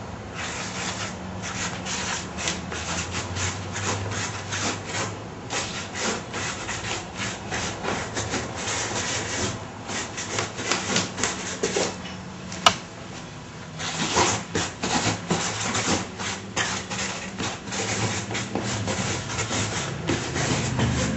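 Hand writing on a large sheet of paper: the tip scratches across the surface in quick, irregular strokes. The strokes stop briefly about twelve seconds in, with one sharp click, then resume.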